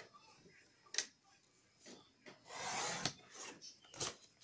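Sliding-blade paper trimmer cutting a sheet of cardstock: a short swish of about half a second as the blade runs along the rail through the card, with a few sharp clicks of the cutting head and the paper being handled around it.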